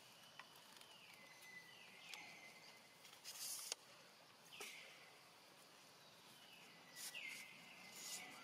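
Faint bird calls, each a downward slide settling into a held high whistle, about four times over a quiet outdoor background. A brief rustle ends in a sharp click near the middle, with another short rustle near the end.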